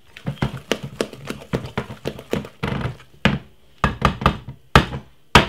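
A wooden spoon beating thick cake batter in a glass mixing bowl, knocking against the side of the bowl in a quick, irregular run of taps, a few each second, the loudest near the end.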